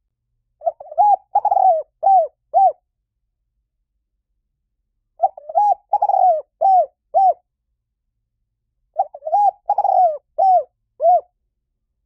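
Spotted dove cooing: three phrases of about five quick, arching coos each, a few seconds apart.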